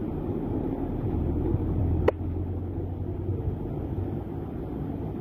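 Steady low rumble of wind and heavy rain on a phone microphone, with a vehicle engine passing by and one sharp click about two seconds in.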